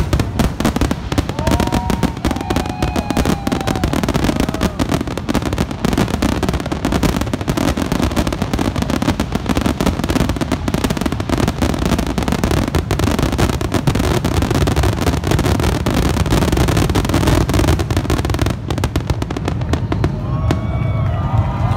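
Aerial fireworks in a rapid, unbroken barrage of shell bursts and crackle, the dense closing volley of a display. Near the end, crowd voices and cheering start to rise over the bangs.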